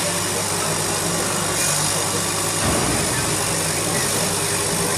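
Laser cutting machine running while its head cuts clear acrylic: a steady hiss of air with a low, even hum under it.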